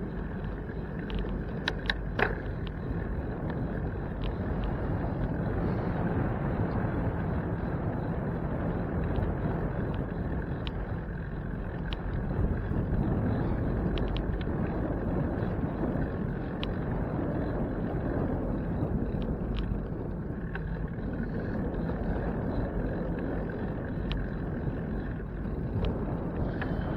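Steady rumble of wind and road noise from a moving bicycle, with scattered small clicks and rattles. A brief cluster of sharp clicks about two seconds in is the loudest moment.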